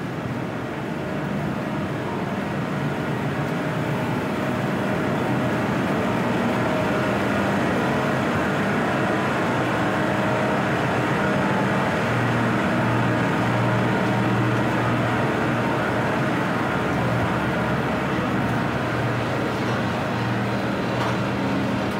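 Steady low machinery hum over an even rushing noise: a ship's running machinery heard on deck. The hum grows stronger for a few seconds about halfway through.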